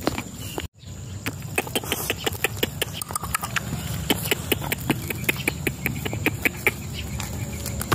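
A person calling puppies with a quick, even run of sharp clicking sounds, about three or four a second, over a low steady rumble. The sound drops out briefly under a second in.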